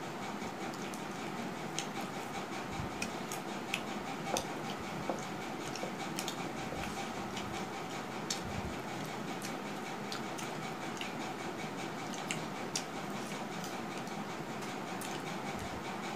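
Eating at the table: scattered sharp clicks and light clatter of fingers and food on steel plates, with fried papad crisps being broken, over a steady background hiss.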